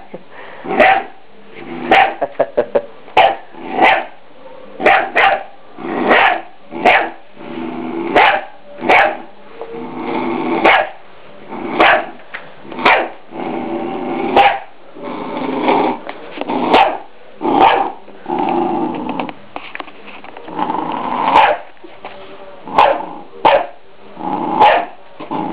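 Three-month-old Scottish Terrier puppy barking repeatedly at a deer skull, about one sharp bark a second, with stretches of growling between the barks: warning barks at something it takes for alive.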